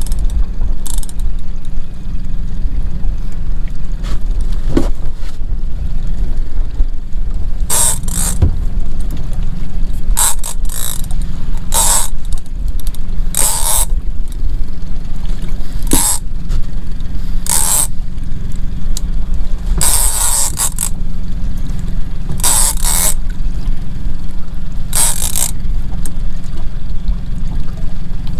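Big-game lever-drag reel (Shimano Tiagra 30W) on a stand-up rod sounding in about a dozen short, sharp bursts as line is worked during the fight with a bluefin tuna, over a steady low rumble.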